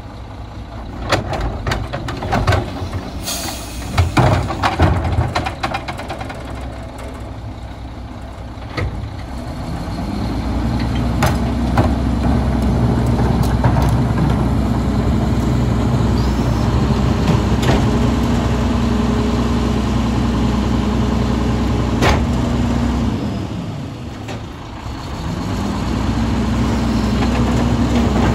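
Heil 5000 rear-loading garbage truck at work: a cart banging and clattering on the hopper's cart tipper, with a short hiss of air about three seconds in. From about ten seconds the truck's engine speeds up to drive the hydraulic packer, a loud steady drone with a whine, which drops away briefly near the end and then rises again.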